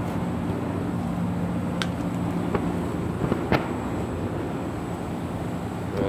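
Twigs and leaves brushing and snapping against the phone as it pushes into a hedge, with several sharp cracks around the middle, over the steady hum of a running air-conditioner outdoor unit.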